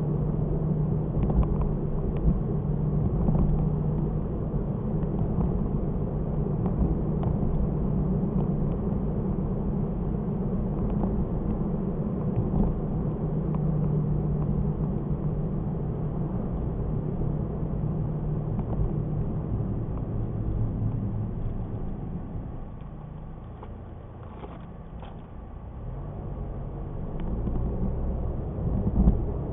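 Car driving, heard from a dashcam: steady engine and road rumble that eases off about three-quarters of the way through and picks up again near the end.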